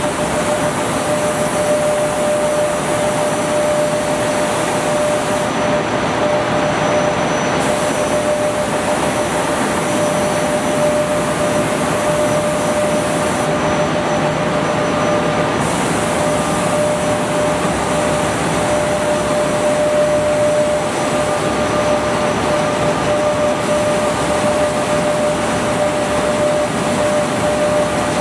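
Pull-up diaper production machine running on its trial run: a steady mechanical din with a steady whine through it.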